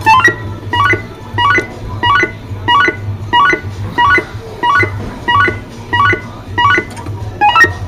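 Electronic sound effects from a coin-operated grip strength tester arcade machine: short rising runs of beeps repeating evenly, about three every two seconds, over a steady low hum.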